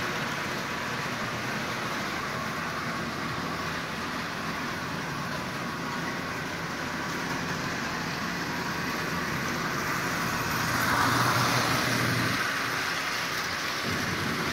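Lionel 8902 toy steam locomotive pulling ten Lionel cars around three-rail O-gauge track: a steady rolling rumble of wheels on the rails, growing louder about eleven seconds in as the train passes close.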